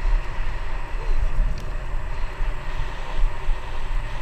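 Wind buffeting a GoPro's microphone on a moving bicycle, a loud uneven low rumble, with the hiss of bicycle tyres rolling on asphalt underneath.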